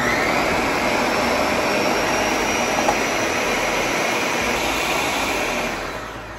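Countertop blender motor running at full speed, pureeing canned pears, milk and cream cheese into a smooth liquid batter. It runs steadily, then winds down near the end.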